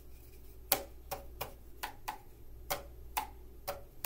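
Cardboard paper-towel-tube boomwhackers struck by hand, about nine short knocks at roughly two a second, each with a brief pitched ring.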